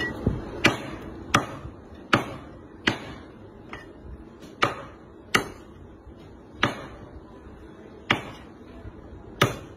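A heavy cleaver chopping cooked, bone-in meat on a thick round wooden chopping block: about eleven sharp chops at an uneven pace, roughly one a second.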